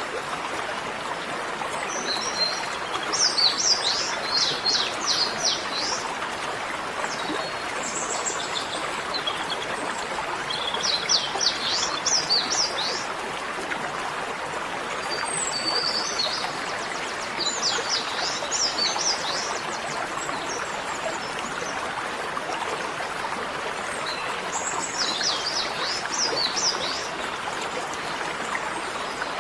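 Birds singing in repeated phrases of quick, falling, high notes, over a steady rushing of flowing water.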